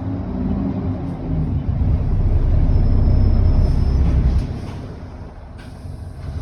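Diesel engine of an ADL Enviro400 double-decker bus running under load, heard on board, with a faint high whine. The engine note drops away sharply about four seconds in, and a click followed by a soft hiss comes near the end.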